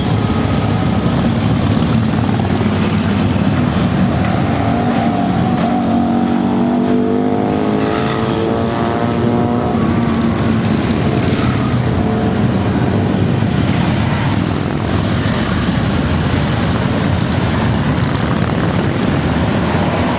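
A continuous stream of Harley-Davidson V-twin motorcycles rumbling past together. Between about six and ten seconds in, one engine's pitch rises as that bike accelerates by.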